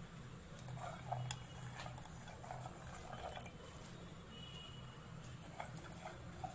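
Faint soft rustling and small clicks of soaked, drained chana dal (split chickpeas) being spread by hand on a cotton cloth, mostly in the first half, with a few sharp ticks near the end. A low steady hum runs underneath.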